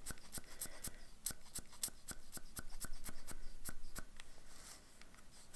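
Sharp, evenly spaced clicks, about four a second, as a small pen-like tool is worked over paper to spatter ink across a card. The clicks thin out near the end.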